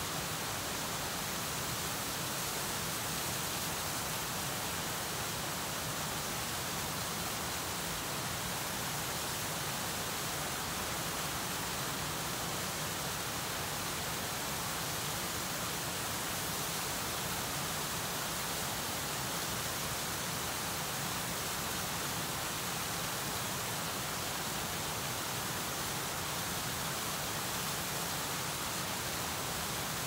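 Small stream waterfall, water pouring over the drop in a steady, unbroken rush with a bright hiss.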